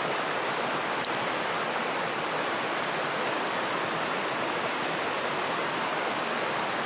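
A river rushing steadily, an even hiss of flowing water. A small click sounds about a second in.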